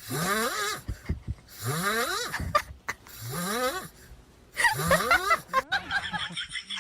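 Snoring: four snores in a steady rhythm about a second and a half apart, each rising in pitch with a hissing edge.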